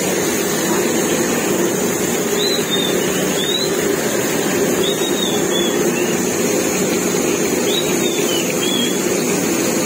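Hot oil sizzling steadily around a whole chicken deep-frying in a wok. A few short, faint, high chirps come through now and then.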